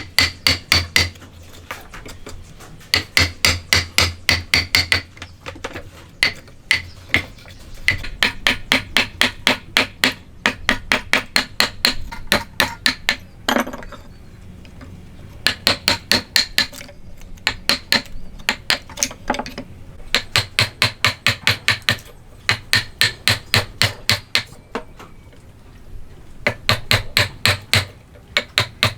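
Hammer tapping in quick runs of sharp blows, about five or six a second, each run lasting a second or two with short pauses between, as in the hand cutting of wood joints.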